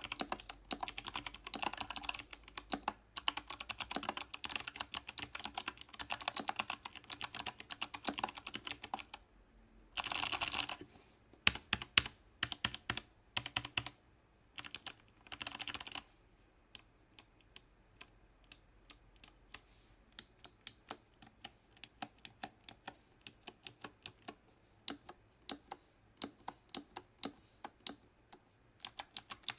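Kemove 61 Snowfox 60% mechanical keyboard fitted with clicky Kailh Box Jade switches, typed on: fast continuous typing, then two short stretches of very rapid clatter, then slower single keystrokes about two a second from about sixteen seconds in.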